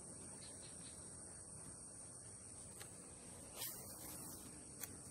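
Faint, steady, high-pitched drone of insects by the pond, with a brief swish about three and a half seconds in and a sharp click near the end.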